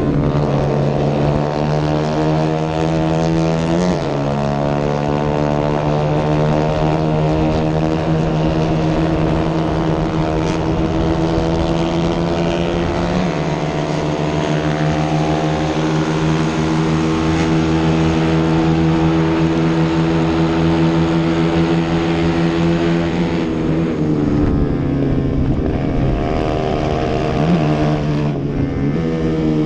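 Racing motorcycle engine at high revs, heard onboard with wind rush: a sustained, steady note with short breaks a few seconds in and again around the middle as it shifts gear, then the pitch falls about three-quarters through as it slows for a corner and climbs again near the end.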